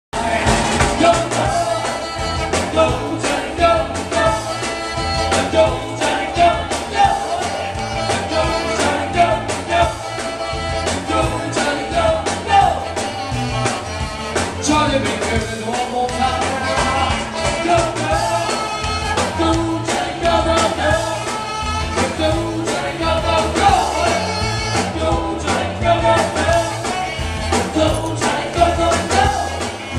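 Upbeat rock-and-roll song with singing over a steady beat.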